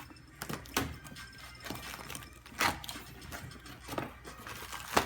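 A mailed shipping package being opened by hand: packaging rustles and crackles in irregular sharp bursts as it is torn open and handled.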